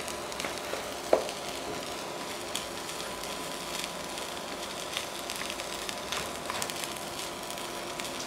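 Fried rice with bell peppers and cubed canned meat sizzling steadily in a non-stick frying pan as it is tossed with wooden chopsticks, with light scattered taps of the chopsticks against the pan and one sharper knock about a second in.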